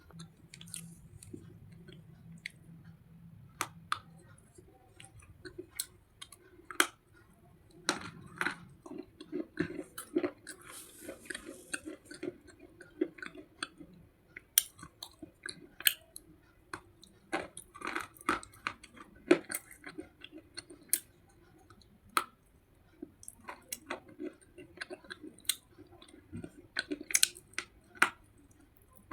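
Close-miked chewing and crunching of slate pencils: irregular sharp crackles and snaps as the brittle pieces are bitten and ground between the teeth.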